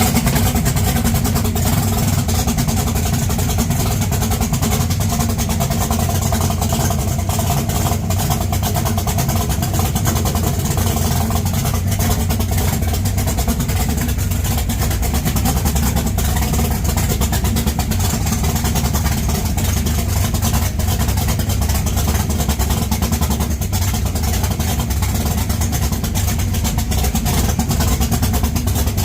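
Engine of a 1969 Camaro drag car running loud and steady, with no revving.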